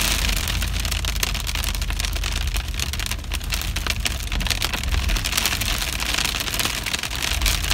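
Hailstones pelting an SUV's roof, windshield and hood, heard from inside the cabin as a dense, steady patter of small hits over the low rumble of the vehicle driving.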